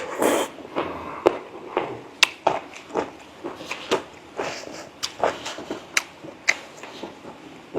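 A person chewing braised pork leg with the mouth close to the microphone: sharp wet smacks and clicks about twice a second, with soft chewing between them.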